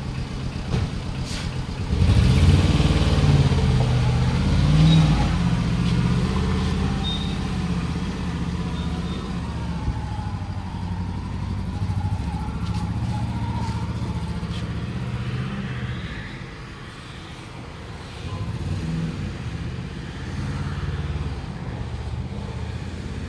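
An engine running with a low, uneven drone that gets louder about two seconds in, dips for a couple of seconds near the end, then picks up again.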